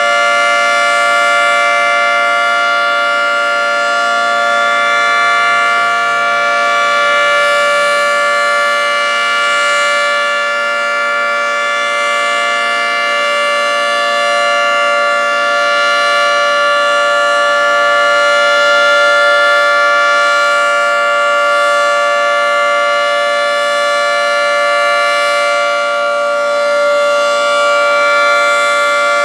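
Federal Signal 3T22A rotating tornado siren sounding a steady alert tone, several pitches together held level, with only gentle swells in loudness. It is giving the steady alert signal rather than the hi-lo signal it normally plays.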